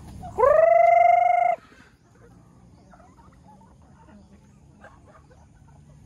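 Rooster crowing once: a single call that rises at the start and is then held steady for about a second, stopping abruptly. Faint clucking from the flock follows.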